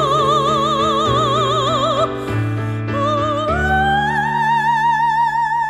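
A woman singing in operatic style with a wide vibrato over sustained backing chords. She holds a long note, breaks briefly about two seconds in, then slides up to a higher held note to close the song.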